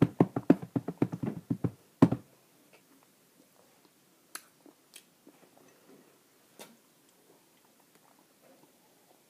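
A long, crackly burp: a rapid rattling run of pulses for nearly two seconds, then one last pulse, then a few faint clicks.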